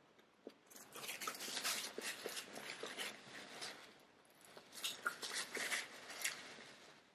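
Close-miked chewing of burgers: soft wet mouth clicks and smacks in two stretches, with a quieter pause around the middle.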